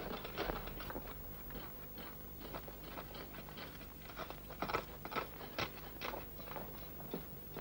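Soft, irregular crunching and scraping of soil being dug and scraped by hand, with many small uneven strokes.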